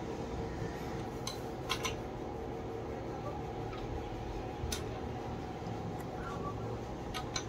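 A handful of short, sharp metallic clicks and clinks of hand tools on a diesel engine being set up for cam timing, over a steady background hum.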